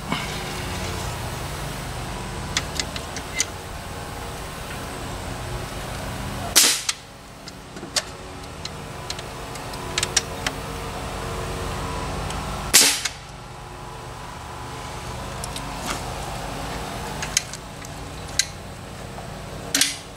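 Framing nail gun firing nails into pine shelf boards: three loud sharp shots about six seconds apart, with lighter clicks and knocks between them, over a steady low hum.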